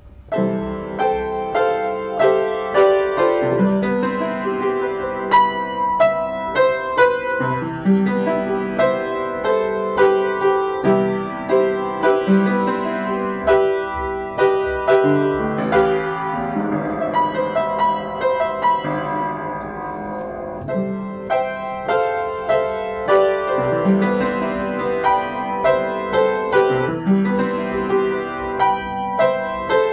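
Yamaha JU109 acoustic upright piano played with both hands, a melody over chords, starting just after a brief pause at the very beginning.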